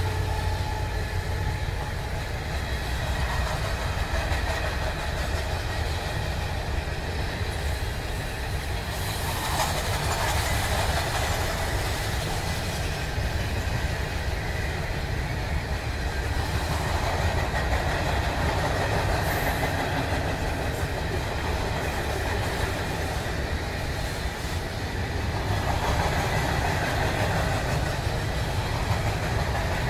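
Intermodal freight train's loaded cars rolling past, a steady rumble of steel wheels on rail.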